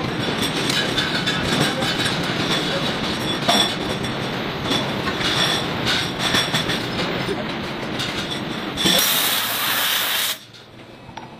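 Steady clattering noise of factory machinery in a bearing-ring production line. About nine seconds in a louder hiss comes in and then cuts off suddenly a little after ten seconds.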